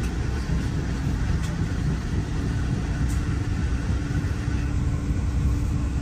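Steady low rumble of a moving vehicle, with a faint steady hum joining in a little over two seconds in.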